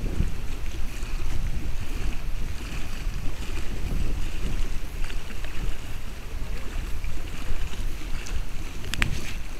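Wind buffeting a keychain camera's tiny built-in microphone: an uneven low rumble that rises and falls throughout. A sharp click sounds about nine seconds in.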